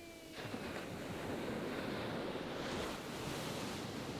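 Sea surf: waves breaking and washing up the shore in a steady rush that starts abruptly about half a second in.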